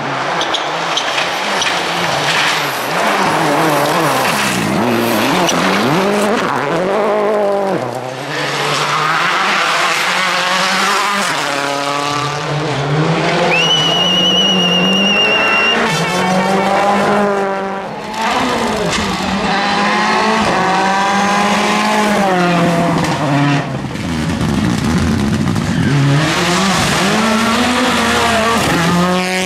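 A run of 2.0-litre turbocharged four-cylinder World Rally Cars, among them a Peugeot 307 WRC and a Ford Escort WRC, driven hard past one after another at stage speed, their engines rising and falling in pitch through gear changes and lifts. Midway comes a high, steady squeal lasting about two seconds.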